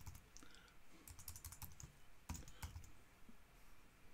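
Faint computer keyboard typing: scattered key clicks in short runs, with a couple of sharper keystrokes about two and a half seconds in.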